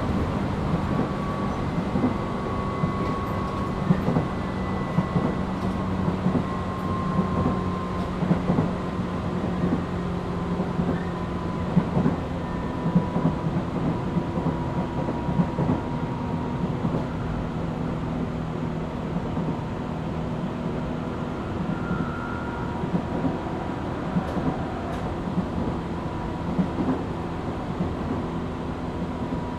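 Running sound heard inside a Tobu 8000 series motor car (MoHa 8270) between stations: steady rumble of the wheels on the rails with the traction motors' hum and whine. The whine's pitch sinks slowly, and a few scattered knocks come through.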